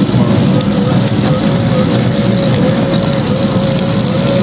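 Automatic salgado-forming machine running steadily as it forms meat croquettes and drops them onto its breading conveyor. It makes a loud mechanical drone with a steady whine.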